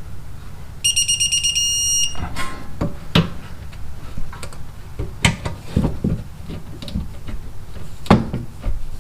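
Fast electronic beeping for just over a second, about a second in, from a digital torque wrench signalling that the caliper bolt has reached its set torque of 41 foot-pounds. Sharp metallic clicks and knocks of the tool work follow.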